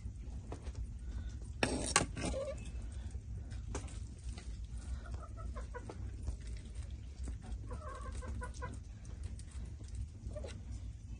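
Chickens clucking now and then, with a brief sharp clatter about two seconds in.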